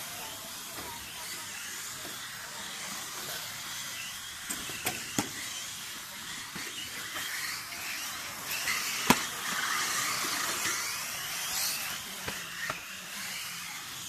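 1:10 electric RC rally car driving the course, its motor whining high and rising and falling in pitch as it speeds up and slows. A few sharp knocks, the loudest about nine seconds in.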